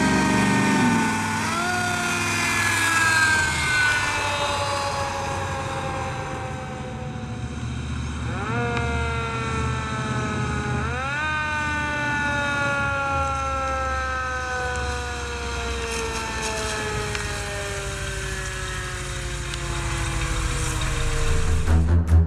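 Fire truck's mechanical siren, spun up three times with a quick rise in pitch and left to wind down slowly each time, over the low, steady running of the truck's ZZ502 big-block V8.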